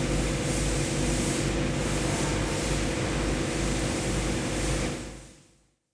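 Denyo DCA-25MC soundproofed diesel generator running steadily: a hum with a pulsing low throb. It fades out near the end.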